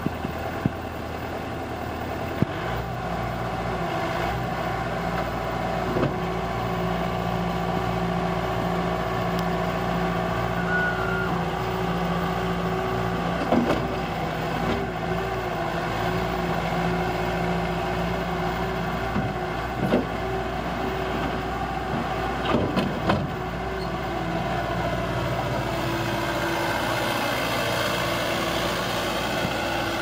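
Bobcat S630 skid-steer loader's diesel engine running steadily as it drives and lifts its bucket arms. The engine note rises a couple of seconds in, and a few sharp knocks from the machine come through it.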